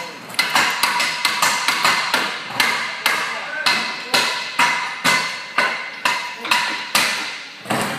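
Hammer striking metal over and over, about three blows a second, each blow leaving a short metallic ring.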